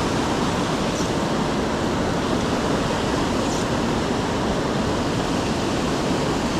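Steady rushing of fast, high water in a small creek swollen by heavy rain.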